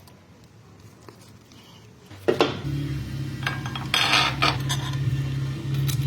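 Light metallic clinks of tools and steel bearing parts being handled, a few sharp ones scattered through the second half. About two seconds in, a steady low hum starts and continues under them.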